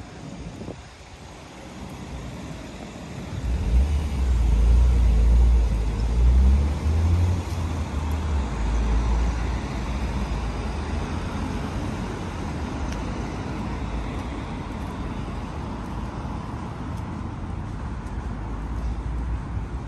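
Street traffic: a motor vehicle passes close by with a heavy low rumble that swells about four seconds in and fades after about nine, then a steady hum of road traffic.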